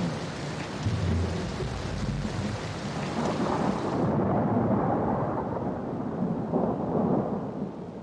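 Heavy rain with low rolling thunder. About halfway through, the sound suddenly turns duller as the high end drops away, then it fades out near the end.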